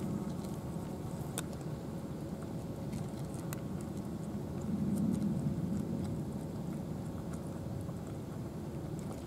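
Two cats eating wet food from plastic dishes: faint, scattered chewing and smacking clicks over a steady low rumble that swells about five seconds in.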